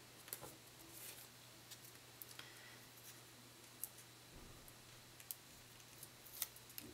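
Near silence: a low steady room hum with a handful of faint, scattered small clicks and ticks.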